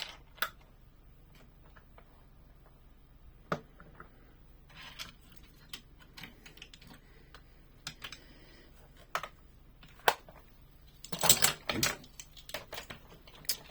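Hard plastic toy parts clicking and clattering as a toy truck playset and its small pieces are handled. There are single clicks every second or two and a short burst of rattling clicks about eleven seconds in.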